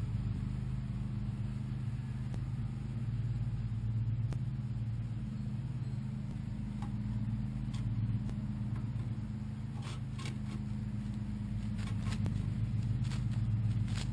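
A steady low mechanical hum, with a few short scratches and rustles in the second half as a chipmunk moves about close to the camera.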